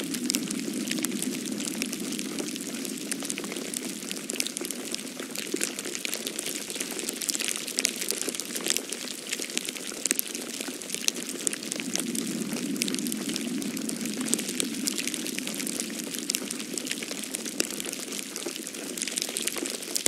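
Falling snow pattering steadily on snow-covered leaves and ground: a dense spread of fine ticks over a soft low rush that swells a little twice.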